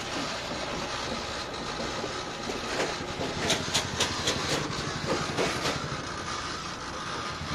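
Popcorn kernels popping in a popcorn machine's stainless steel kettle: a run of about ten sharp, irregular pops in the middle, over a steady hum of street traffic.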